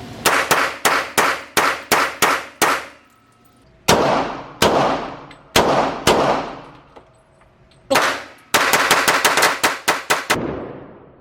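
Gunshots at a shooting range, each with a ringing, fading echo. There is a quick string of about nine shots, then four slower, spaced shots, then another rapid string of about ten shots near the end.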